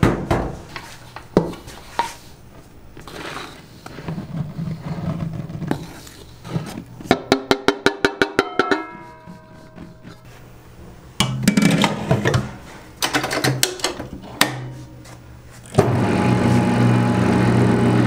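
Knocks and clatter of buckwheat noodle dough being worked, including a quick run of about a dozen clicks. About two seconds before the end a machine motor starts and runs with a loud, steady hum.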